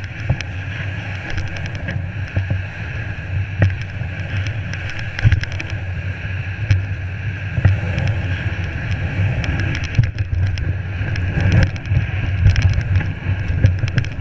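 Steady low rumble and hiss of a GT snow racer sled running through deep snow, picked up by a GoPro mounted on the sled, with scattered knocks and bumps throughout.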